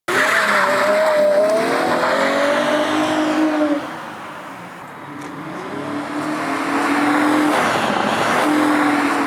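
Car engine running hard under load, with a pitched drone over a rushing noise. It fades about four seconds in, then builds back up again.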